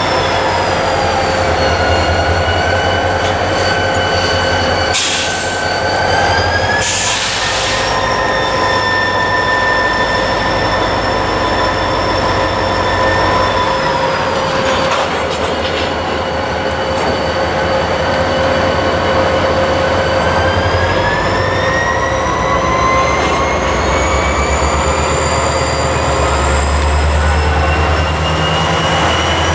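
Slow-moving freight train with its wheels squealing in several drawn-out tones that slowly shift in pitch, over the low rumble of a diesel locomotive. Two brief hisses come around five and seven seconds in.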